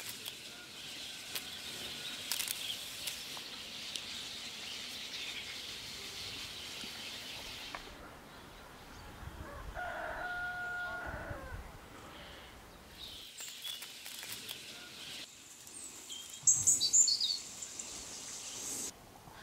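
Rosehips tumbling and rustling into a wicker basket for several seconds. About ten seconds in, a rooster crows once, and near the end there are a few sharp bird chirps.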